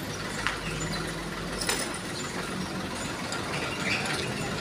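Hino truck's diesel engine idling steadily, with a couple of sharp metal clicks from the cargo box's side-panel latches being worked.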